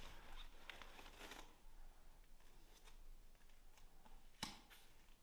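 Faint rustling and light ticking of small cards being handled, with one sharp click about four and a half seconds in.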